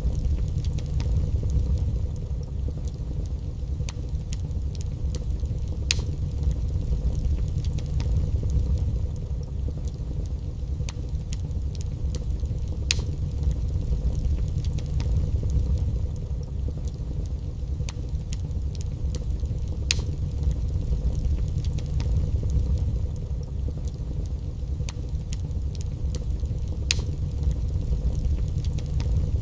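Wood fire burning in a fireplace: a steady low rumble from the flames, with sharp crackles and pops at irregular intervals.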